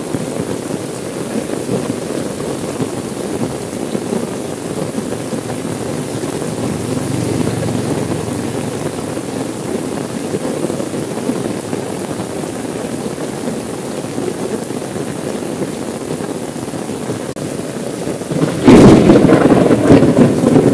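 Steady rain pattering on a car window, heard from inside the car. Near the end a loud thunderclap breaks in suddenly and rumbles on.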